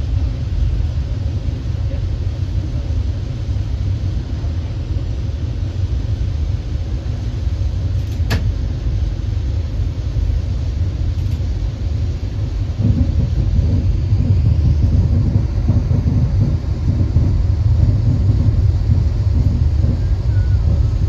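Steady low rumble of a VIA Rail passenger train running along the track, heard from inside the train. There is a single sharp click about eight seconds in, and the rumble grows louder about thirteen seconds in.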